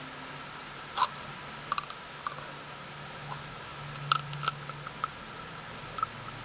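A handful of short, sharp clicks and taps at irregular intervals, over a steady low hum.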